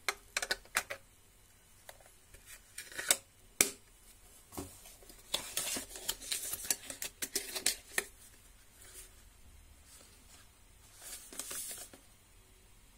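Hands handling a safety razor's hinged plastic case and its cardboard box: a few sharp clicks, two louder snaps about three seconds in, then several seconds of card sliding and scraping as the case goes into the box, and a shorter rustle near the end.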